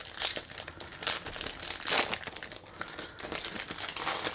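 Foil Yu-Gi-Oh booster pack wrapper crinkling as it is handled and opened, with the loudest rustles at the start and about two seconds in.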